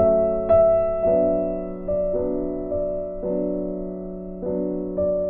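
Background piano music: a slow run of chords, a new chord struck about once a second and fading before the next.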